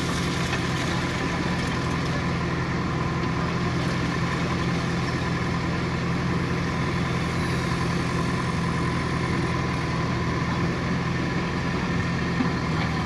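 JCB 3DX backhoe loader's diesel engine running steadily at a constant pitch while the backhoe arm works coal out of a truck bed.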